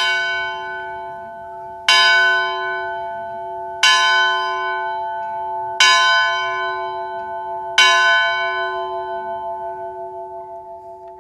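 A single church bell tolling five times, about two seconds apart, each stroke ringing on and dying away, the last one fading with a slow pulsing hum.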